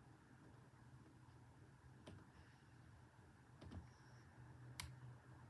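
A few faint, scattered clicks from a lock pick and tension wrench working the pin stack of a brass Ruko padlock's 500 core, the sharpest near the end, over quiet room tone.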